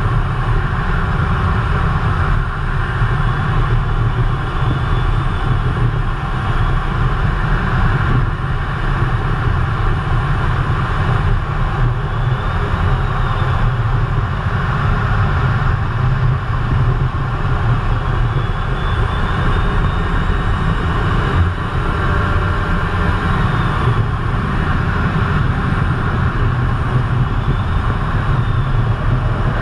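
Steady cockpit noise of a Eurofighter Typhoon in flight, heard inside the canopy: its twin Eurojet EJ200 turbofans and the rush of air, with a deep low rumble. A faint high whine rises and falls a few times.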